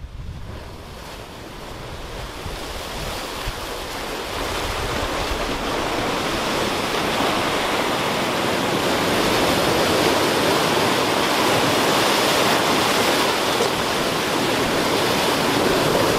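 Ocean surf breaking and washing over lava rocks at the shoreline, a continuous rushing that grows steadily louder.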